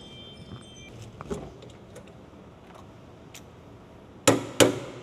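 Light metallic clinks as a wheel and tire are handled on a tire balancer's shaft, then two sharp metal knocks about a third of a second apart near the end, from a hand tool struck against the wheel rim.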